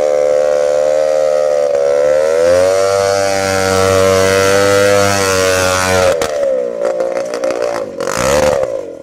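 Motor of a home-built motorized bicycle machine running hard, its pitch wavering up and down. It eases off about six seconds in, then revs briefly again near the end.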